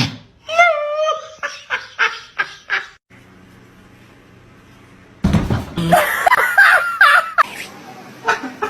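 People laughing in rhythmic bursts, in two short stretches. The second stretch starts abruptly a little past five seconds in with a loud noisy burst.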